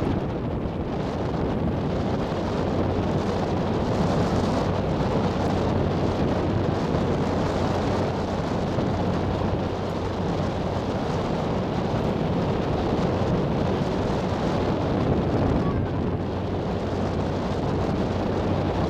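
Ferry's engine running with a steady low hum under a constant rush of wind buffeting the microphone.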